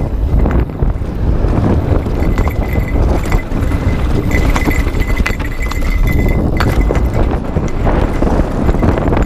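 Mountain bike riding fast down a dry dirt and rock trail: tyres crunching over dirt and stones, and the bike rattling and clattering over bumps, over a constant low rumble. A thin, high, steady whine rises over it for a few seconds in the middle.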